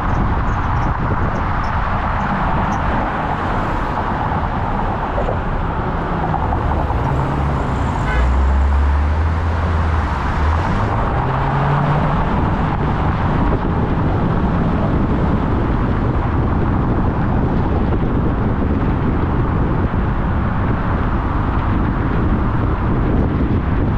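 Car driving on a city road: steady tyre and wind noise with a low rumble. A low engine drone swells for a few seconds about a third of the way in, then its pitch rises briefly.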